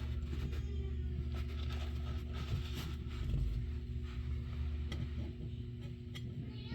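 A scraper working a resin-printed miniature figure loose from the 3D printer's build plate: irregular faint scraping and clicks over a steady low hum. The print is stuck fast.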